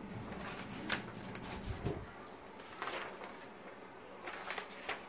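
Faint rustles and a few light knocks from printed paper sheets being handled and swapped by hand, over quiet room tone.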